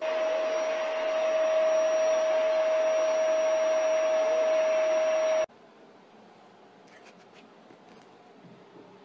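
Steady whir of an electric blower motor with a constant hum-tone, cutting off abruptly about five and a half seconds in; after it, faint room noise with a few light clicks.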